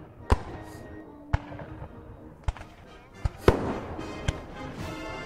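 Scattered black-powder musket fire: about six single shots at uneven intervals, the loudest about three and a half seconds in.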